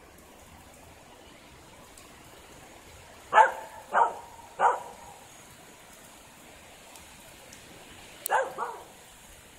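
A dog barking: three barks about half a second apart a few seconds in, then two more in quick succession near the end, over a steady hiss of rain.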